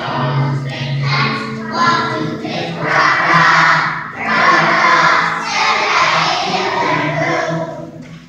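A group of young children singing together as a choir, the song dying away near the end.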